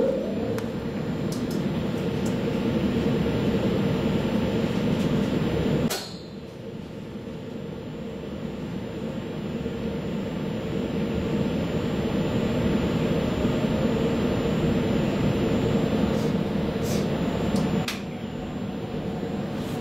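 Interior running noise of a VR Sm4 electric multiple unit rolling along the track: a steady rumble with a hum. It drops suddenly about six seconds in and then builds back up, and a few sharp clicks come near the end.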